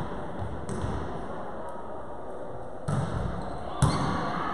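Volleyball being struck in a large sports hall: a sharp slap about three seconds in and a louder one just before the end, each ringing out in the hall's echo.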